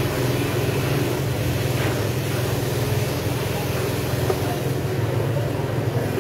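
Steady low engine hum, unchanging in pitch and level.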